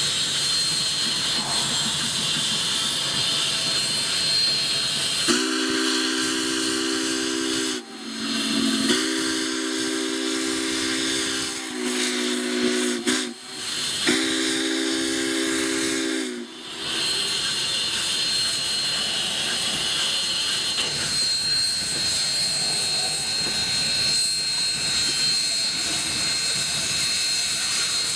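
Union Pacific 844 steam locomotive blowing its chime whistle in the long, long, short, long grade-crossing pattern, the third blast clearly shorter. A steady hiss of steam runs under it.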